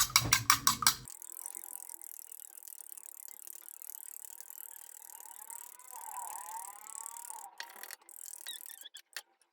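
A utensil whisking a raw egg with salt in a dish: rapid clicking strokes against the dish, several a second, that stop abruptly about a second in. After that only a faint high hiss remains.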